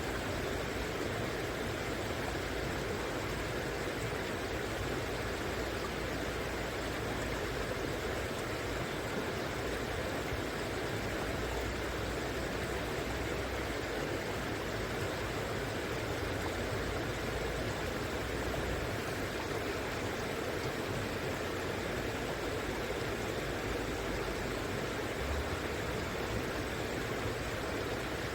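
River water flowing and rushing steadily, an unbroken, even rush of running water.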